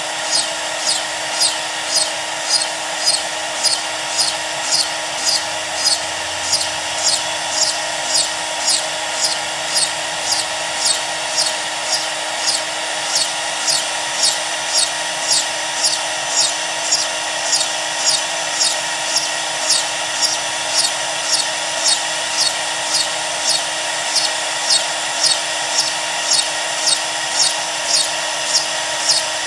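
CNC router spindle running steadily while a 1/8-inch upcut ball nose bit drills peg holes in a walnut cribbage board, each hole plunged straight in one pass with no pecking. Each plunge gives a short cutting surge over the spindle noise, about three holes every two seconds, evenly paced.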